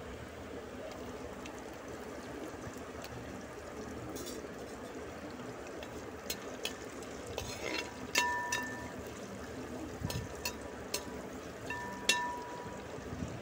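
Oil sizzling in a wide aluminium pan as garlic cloves, crushed ginger and coconut pieces fry. In the second half a metal perforated skimmer clicks and scrapes against the pan several times, with a couple of short high squeaks.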